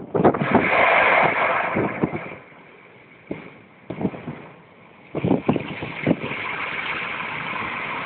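Storm waves breaking and washing up a shingle beach in a moderate gale. The rush of surf surges loudly at the start, dies back for a few seconds, then surges again about five seconds in, with wind buffeting the microphone in low thumps.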